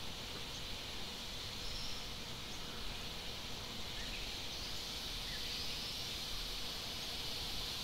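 Insects droning steadily: a high, even hiss that does not change over the few seconds.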